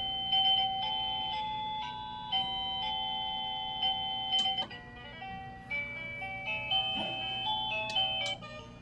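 Electronic chime tunes from a Housmile plug-in wireless doorbell receiver: simple single-note melodies of clean beeping tones. About four and a half seconds in, after a click, one tune stops and another begins.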